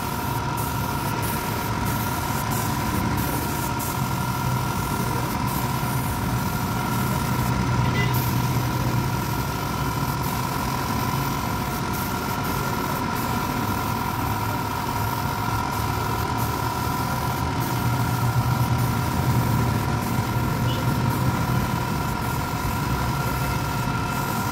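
Air compressor running steadily while a paint spray gun hisses as it sprays a wooden chair, the sound swelling a little twice.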